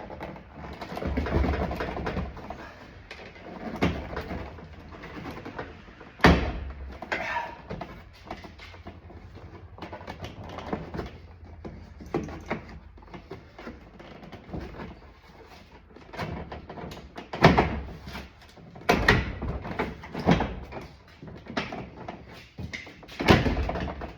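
Clicks, knocks and rattles of plastic and metal door-panel parts being pried and unlatched by hand, with several sharp clunks as pieces snap loose or spring back into their slots.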